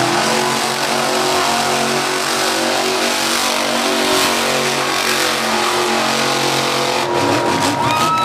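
Monster truck's engine running loud and revving as it drives on the dirt track. Near the end the crowd starts cheering and shouting.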